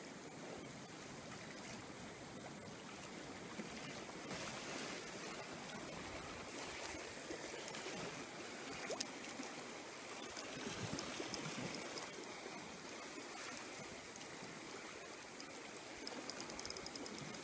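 Steady wash of sea water lapping against a breakwater, with a brief faint click about nine seconds in.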